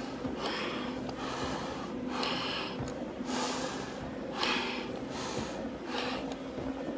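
Heavy, rapid breathing through an SCBA face mask and regulator, a hissing breath about every second, from the exertion of climbing stairs in full gear. A faint steady hum runs underneath.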